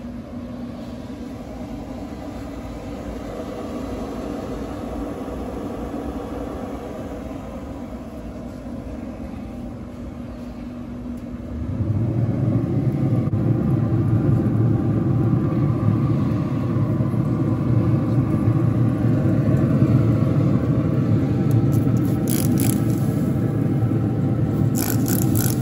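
Pit Boss Pro 850 pellet smoker running with a steady low rumble that grows much louder about halfway through as its lid is opened. Near the end a trigger spray bottle squirts in two quick runs of strokes.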